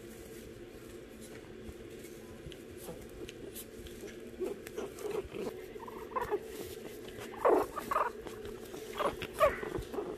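Shih Tzu puppy close to the microphone giving a series of short whimpers and yips in the second half, the loudest two near the end, over a steady low hum.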